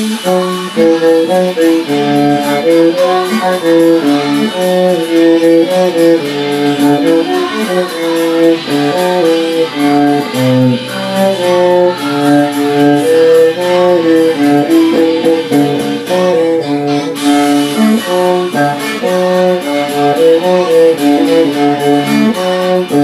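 Cello music: a bowed melody played over other lines, several notes sounding at once, in steady, distinct notes.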